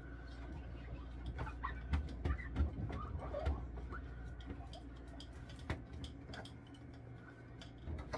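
Handling noise from a phone held against a cotton shirt: fabric rubbing and many small clicks. A cluster of short squeaks about one to four seconds in comes from wiping out the refrigerator.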